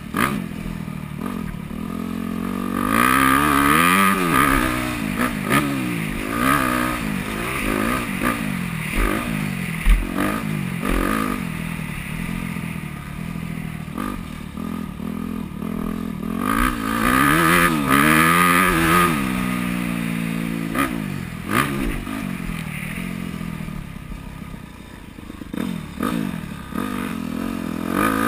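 2009 Yamaha YZ250F's four-stroke single-cylinder engine riding a motocross track, revving up and falling back over and over as the throttle is opened and closed through corners and straights, heard from a helmet-mounted camera. A few sharp knocks come through now and then, one about ten seconds in.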